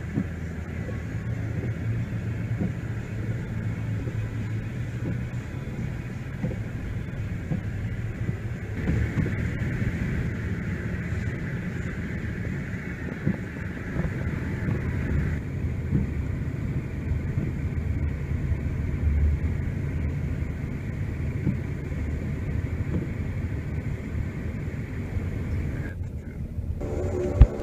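Snow removal vehicle's engine running steadily, a low drone heard from inside the cab. A sharp click near the end.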